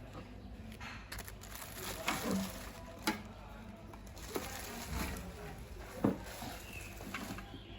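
A few light, irregular knocks and clicks of objects being handled, the sharpest about three and six seconds in, over a steady low hum.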